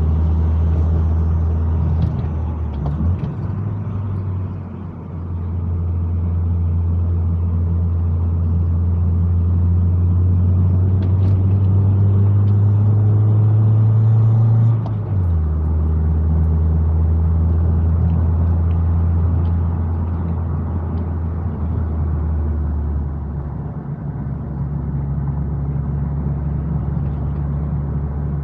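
Car engine droning while climbing a hill, its low note rising slowly and then dropping sharply about halfway through.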